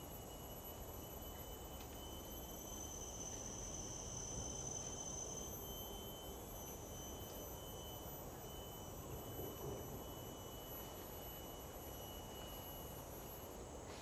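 Tropical forest insects droning: several steady, high-pitched tones at different pitches, one swelling for a couple of seconds about three seconds in, over a faint low background rumble.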